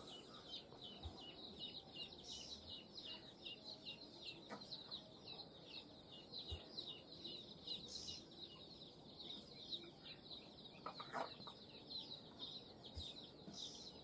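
Near silence, with faint, rapid high-pitched chirping throughout and a few soft clicks.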